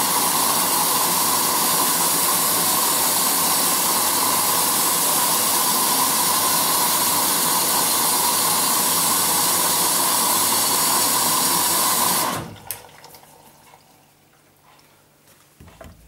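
Front-loading washing machine with water rushing through it: a steady, loud hiss that stops suddenly about twelve seconds in, leaving a faint low hum.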